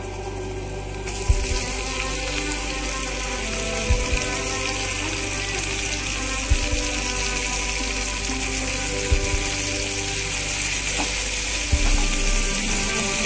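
Garlic and sliced red onions sautéing in hot oil in a frying pan, an even sizzle that grows louder about a second in, under background music with a slow, steady beat.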